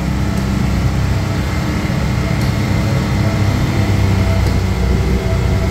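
Side-by-side UTV engine running steadily at an unchanging pitch.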